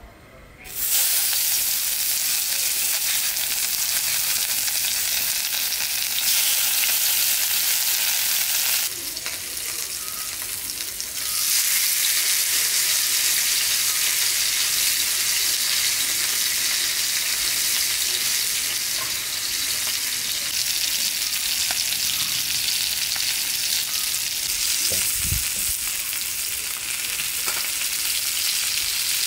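Green-masala-coated fish sizzling in shallow hot oil on a flat tawa. The sizzle starts suddenly as the fish goes into the oil about a second in, then runs steadily, dipping briefly about a third of the way through; a single soft knock comes near the end.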